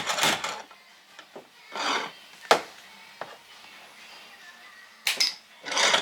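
Short scraping noises on metal and one sharp click about two and a half seconds in, from dent-pulling bodywork with a stud-welding dent puller (spotter).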